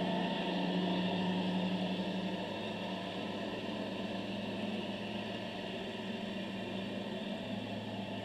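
Steady low hum of a distant boat engine heard underwater, with a faint hiss over it; its low tone shifts partway through.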